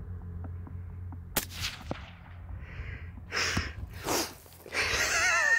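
A single rifle shot at a coyote about a second and a half in, followed half a second later by a fainter crack. A voice calls out near the end.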